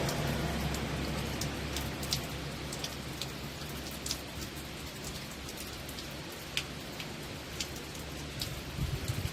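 Falling water hissing steadily, with scattered sharp drip-like ticks.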